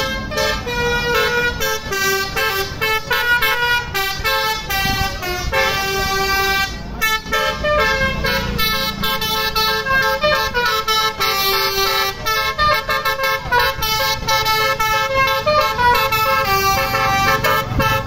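Basuri telolet horn, a multi-tone musical car horn, playing a quick tune of short notes that change pitch several times a second. The tune cuts off suddenly at the end.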